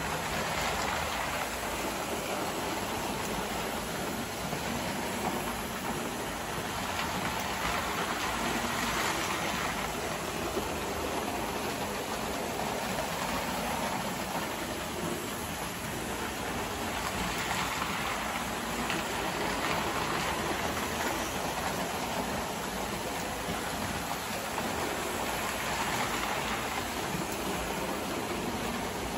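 Toy O-gauge model ALCO diesel locomotives running on tinplate track: a continuous rumble and rattle of wheels and motors. It swells about every eight or nine seconds as a train passes close by.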